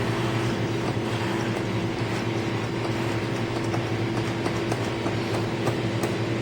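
Claw machine humming steadily with a constant low drone, and a few faint clicks near the end.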